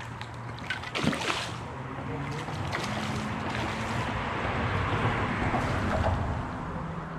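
A boat engine's steady low hum under a rushing water-and-wind noise that swells toward the middle and eases near the end, with a sharp click about a second in.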